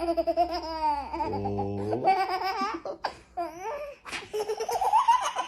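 A baby laughing and squealing in high, pitch-bending bursts, with quick pulsing giggles in the second half. About a second and a half in, an adult voice makes a low drawn-out 'ooh'.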